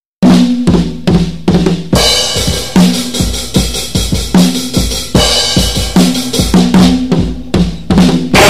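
Opening of a lo-fi noisecore track: a drum kit beats out a stop-start pattern of kick and snare hits with low pitched notes under them. Right at the end it breaks into a dense, continuous wall of distorted band sound.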